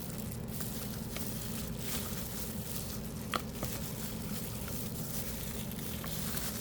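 Soft handling noises of a flexible silicone mold being peeled off a cured resin casting, with a few light clicks, over a steady low hum.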